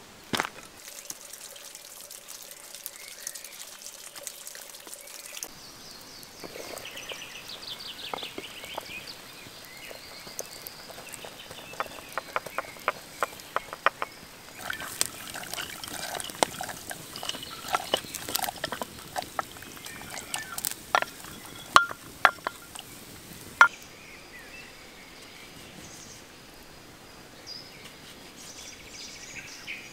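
A few footsteps on a dirt track at the start, then a wood fire under a stone cooking pot crackling with many sharp pops. The pops are densest through the middle and loudest a little past two-thirds through.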